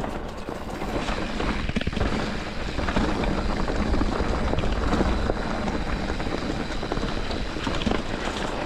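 Mountain bike riding down a loose, rocky trail: wind buffeting the microphone and a steady clatter of tyres and bike rattling over rocks.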